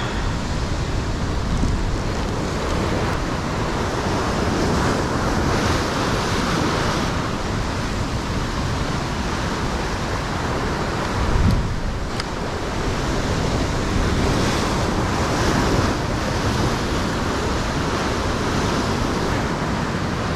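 Ocean swell surging and foaming against a rock ledge, a steady rushing wash of surf, with wind buffeting the microphone. The sound swells briefly louder about eleven seconds in.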